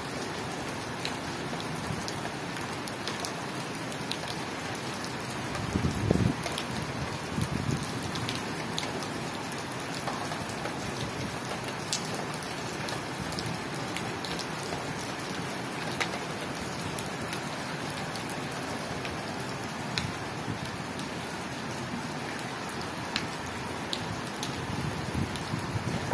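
Steady rain falling on a wet tiled rooftop: a constant hiss sprinkled with sharp ticks of individual drops. A brief low rumble rises over it about six seconds in, with a weaker one a second and a half later.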